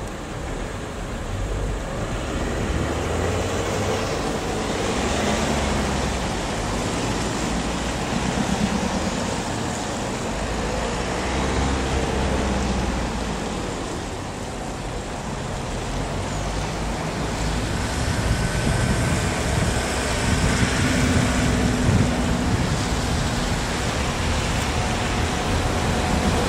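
Irish Rail 22000 Class diesel multiple unit approaching slowly on street-side track, its underfloor diesel engines and wheels growing louder until it draws alongside near the end, mixed with road traffic noise.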